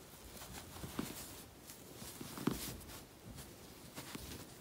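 Faint rustling of hands handling and turning a crocheted yarn pillow, with a few soft knocks.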